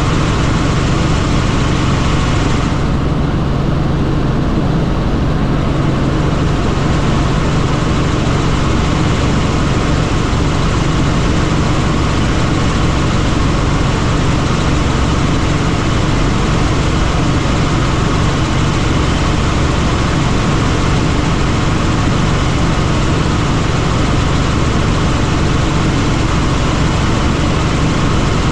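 Helicopter in flight: steady, loud rotor and engine noise. The upper hiss is briefly dulled for a few seconds near the start.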